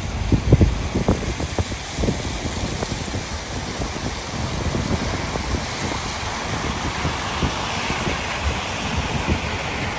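Road traffic on a rain-soaked street: steady hiss of car tyres on wet asphalt over engine rumble, with a few low thumps in the first couple of seconds. The tyre hiss grows louder in the last few seconds.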